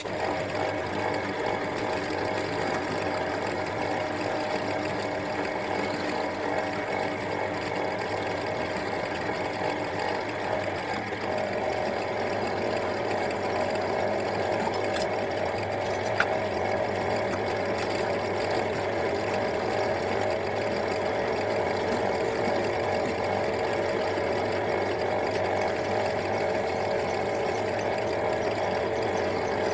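Drill press motor running steadily with a cylindrical rotary burr spinning in the chuck, grinding a small metal ring held against it by hand. A steady tone in the sound grows stronger about eleven seconds in, and there is a single click a few seconds later.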